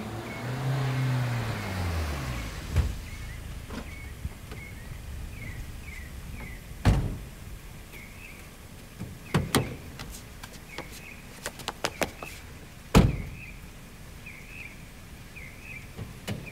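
A car drives past in the first few seconds, its engine pitch rising then falling away, then several sharp knocks sound through the rest, the loudest near the end. Short high chirps repeat in the background.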